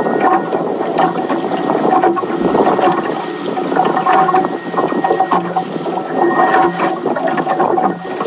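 Water sloshing and slapping against a small boat's hull, with a faint steady hum underneath that fades in and out.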